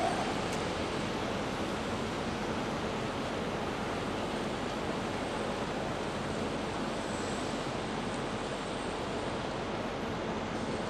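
Steady rushing ambient noise of an open-air railway station, even throughout with no distinct events.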